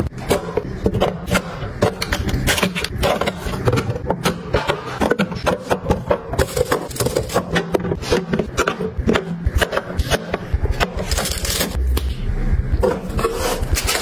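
Refrigerator restocking: plastic bottles and containers knocked, slid and set down on plastic fridge shelves and door bins. Many short knocks and clicks with some scraping.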